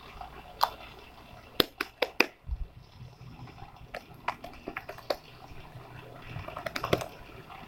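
Homemade clear slime being stretched and squeezed by hand, giving a scatter of small sharp clicks and wet pops, several in quick succession about two seconds in and again near the end.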